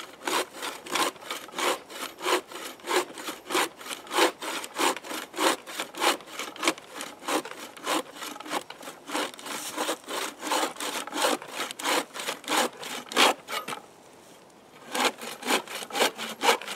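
Homemade bucksaw cutting through a stick of wood in quick back-and-forth strokes, about three a second, with a pause of about a second near the end before the sawing resumes. The blade is under too little tension and buckles on the push stroke.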